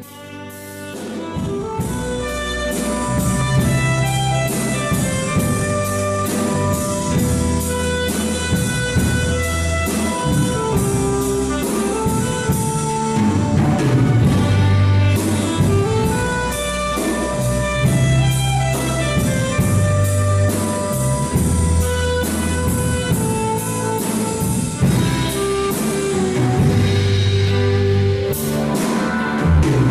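Live band playing an instrumental introduction: a saxophone carries the melody over electric guitars, keyboard, bass guitar and drum kit. It fades in over the first couple of seconds.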